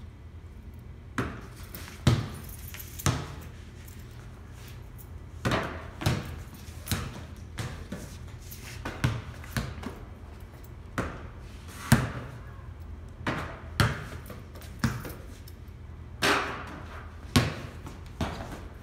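Basketballs repeatedly striking the backboard and rim and bouncing on a concrete floor during a run of shots: a string of sharp thuds and bangs about every second or so, some ringing briefly, over a steady low hum.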